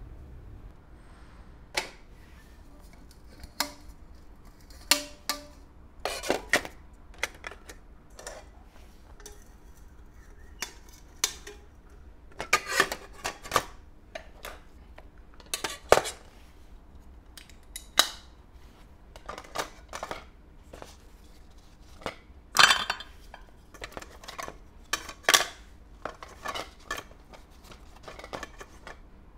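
Aluminium alloy camping pots, lids and bowls being handled and nested together: irregular clinks, knocks and light scrapes of cookware against cookware, a few of them sharper and louder.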